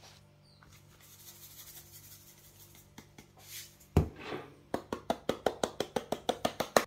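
A seasoning container knocks down on a table about four seconds in. Then a tin of ground black pepper is shaken over a glass bowl, giving a fast, even run of sharp clicks, about seven a second.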